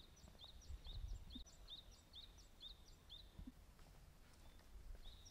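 A bird calling faintly: a quick, even series of short high chirps, about two or three a second, stopping a little past the three-second mark.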